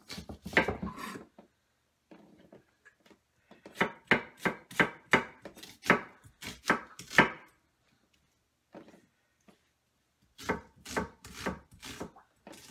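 Chef's knife chopping an onion on a wooden butcher-block board: three runs of sharp, even cuts at about three a second, the longest run in the middle.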